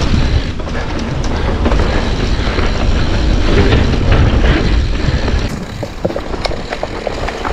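Mountain bike riding over a leaf-covered, rocky trail: tyres crunching through dry leaves and rolling over stones, with frequent clattering knocks from the bike over the bumps.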